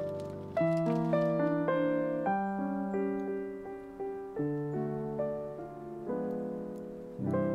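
Background piano music: soft chords and a melody, each note struck and then fading, new notes every half second or so.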